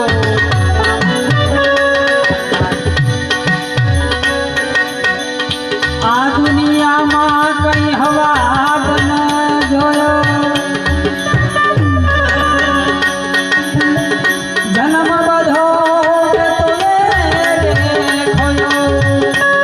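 Harmonium and tabla playing an instrumental passage of a bhajan in raag Bhairavi. Held reed tones carry a melody that slides in places, over a steady tabla beat whose low bass-drum strokes bend down in pitch.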